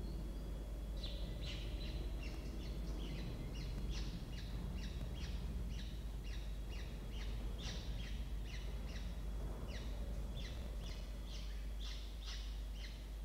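Newly hatched peregrine falcon chicks peeping, a long run of short high cheeps at about two to three a second, while an adult broods them. A steady low hum runs underneath.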